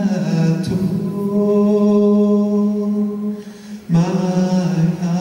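A male gospel singer sings long held notes through a microphone and PA, with other voices sustaining notes alongside him. The singing dips briefly a little after three seconds and comes back in about four seconds in.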